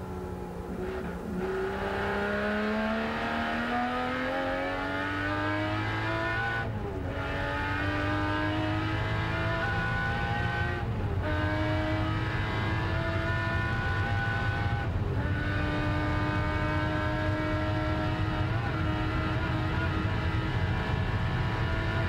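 Jaguar XJS racing V12 engine, heard from inside the cockpit, accelerating hard with the revs climbing through the gears: three upshifts about four seconds apart, each a brief drop in the engine note, then running at steady high revs.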